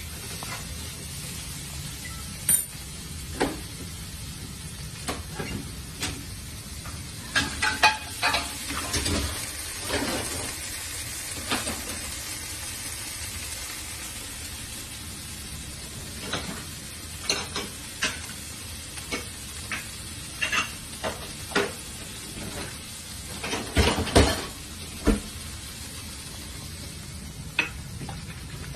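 Chicken breast pieces frying in a pan with a steady sizzle, while a utensil scrapes and clinks against the pan in irregular bursts as they are stirred and turned.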